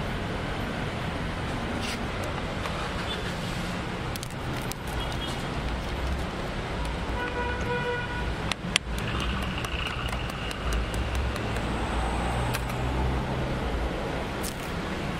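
Steady road-traffic noise with passing vehicles, a brief horn toot about halfway through, and small clicks of hand tools being handled, with one sharp click just after the toot.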